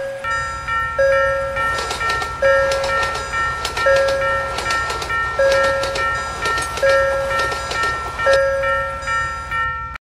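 Level-crossing warning bell ringing in a repeating chime pattern about once every second and a half, over the rumble and rail clacks of a passing train.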